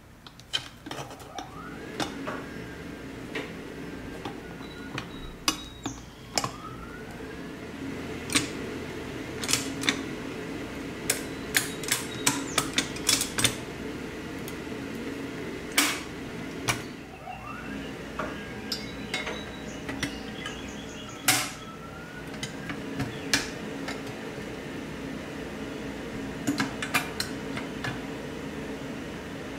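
Pressed-steel Tonka toy cement mixer being handled and turned over: a scattered run of sharp clicks and metallic clinks from its body, axles and wheels, over a steady low hum.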